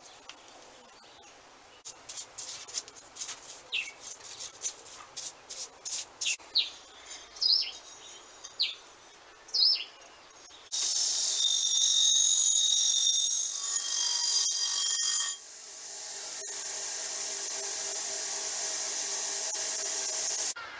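Masking tape being pulled off the roll in short rasping strips, with small birds chirping. About halfway through, a wire wheel on a bench grinder starts brushing a cast end cover with a loud steady hiss and whine. It drops off briefly, then runs on steadily until just before the end.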